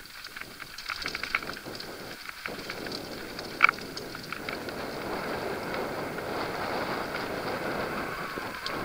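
Mountain bike rolling fast down a rocky dirt trail: tyre noise over dirt and stones with the bike rattling and clicking, and one sharp clank a little under four seconds in. The rolling noise grows louder and steadier in the second half.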